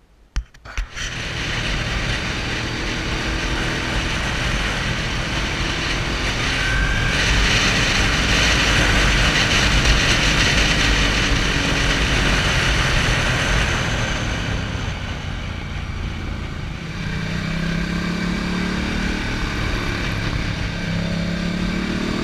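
Motorcycle ride heard from a helmet-mounted camera: wind rushing over the microphone with the engine running underneath. A few knocks come in the first second as it sets off, and the engine pitch rises several times near the end as the bike accelerates.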